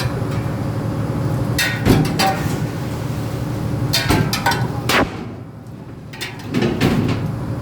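Several sharp knocks and clatters over a steady low machine hum; the hum drops away briefly about five seconds in, then returns.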